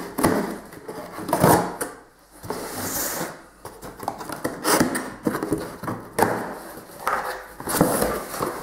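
Knife slitting the packing tape on a cardboard shipping box, then the cardboard flaps being pulled open: irregular scraping, tearing and rustling of cardboard with a few small knocks.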